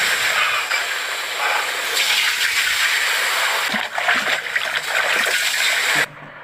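Water rushing and splashing, a steady noise that drops away sharply about six seconds in.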